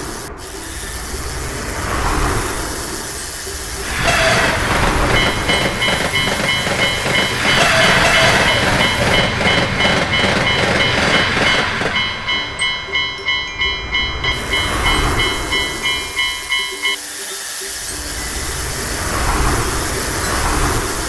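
Trains rumbling past a level crossing while the crossing alarm rings its 'kan-kan' about twice a second. The bell starts about five seconds in and stops about four seconds before the end.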